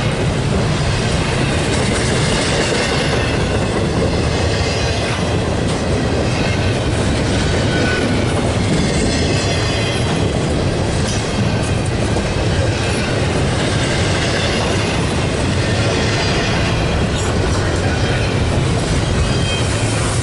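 A train rolling past, its cars' wheels running along the rails in a steady, loud stream of noise.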